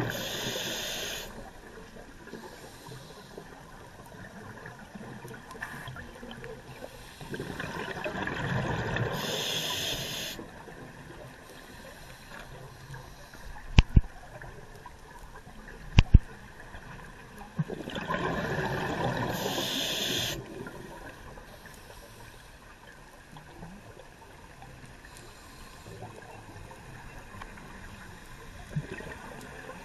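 Scuba diver breathing underwater through a regulator: three long rushes of exhaled bubbles, roughly ten seconds apart, with quieter hiss in between. Two sharp double clicks sound about fourteen and sixteen seconds in.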